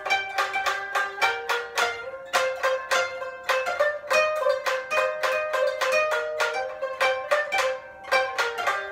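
Koto and shamisen playing together: a steady run of sharply plucked notes, several a second, each ringing briefly.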